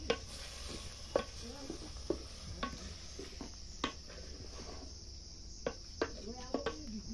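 A wooden spoon stirring chopped pumpkin leaves in a metal pot, knocking and scraping against the pot's side every second or so. A steady, high chirring of crickets runs behind it.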